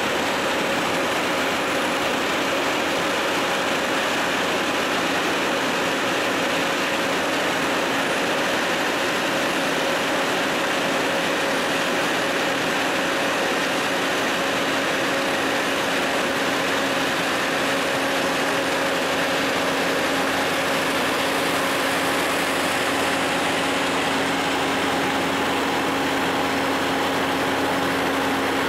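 Heavy diesel road-paving machinery running steadily while a tipper truck unloads asphalt into a Dynapac paving machine, a dense even engine noise with a steady hum. A second, lower hum joins about two-thirds of the way through.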